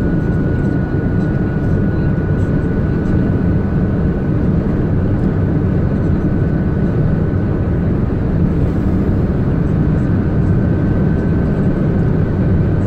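Steady engine and road noise inside a vehicle's cab at cruising speed, with a faint high steady tone over it.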